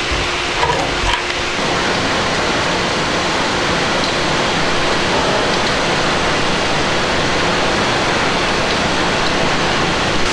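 Wood-fired maple sap evaporator boiling hard: a steady, loud rushing hiss of boiling sap and escaping steam. There are a couple of low thumps in the first second or so.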